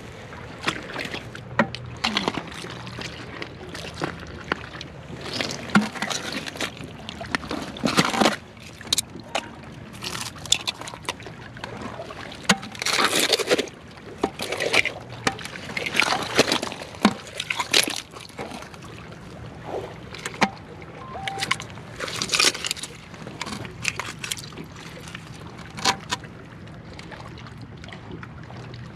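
Rubber boots squelching through wet mud and crunching over oyster shells in irregular steps, with sloshing water and sharp shell clicks.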